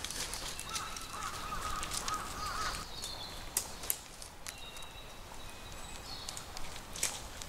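Sharp clicks and light rustling as a dome tent's plastic hooks are snapped onto its poles, the loudest about three and a half seconds in and again near the end. A wavering high animal call runs for about two seconds early on, and thin high bird whistles follow.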